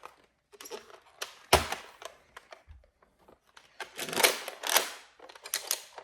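Plastic clicks, clacks and rattles of a Nerf blaster being handled and reloaded with darts, with one sharp knock about a second and a half in and a busy run of clicking around four to five seconds in.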